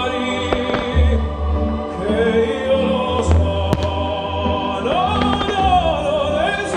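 Operatic singing over orchestral music, with the sung line wavering in a vibrato near the end. A few sharp firework cracks cut through in the first four seconds.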